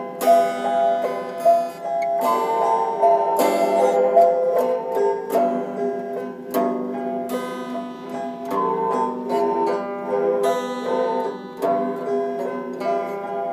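Instrumental music on a plucked string instrument: a melody of sharply plucked notes that ring briefly, with several notes a second.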